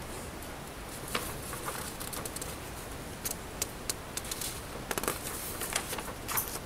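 Paper rustling and handling, with scattered light clicks and taps, as notebook pages and a loose sheet are moved.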